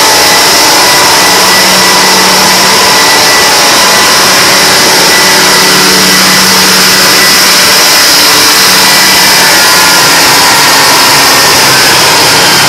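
Twin GM 6-71 Detroit Diesel two-stroke inline-six engines, coupled through a common gearbox to a 480-volt generator, running steadily and loudly with a high whine over the engine noise.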